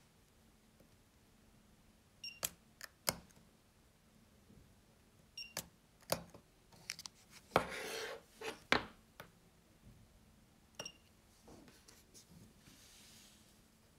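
Portable lithium battery spot welder firing: a short buzzer beep at three points, each followed by sharp snaps of the weld pulses as the copper electrodes are pressed onto a metal strip. About halfway through there is a longer crackling burst.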